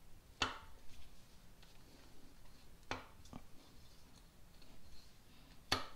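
Four separate sharp metallic clicks, faint against quiet room tone, as hand tools and bolts are handled against metal parts on an engine.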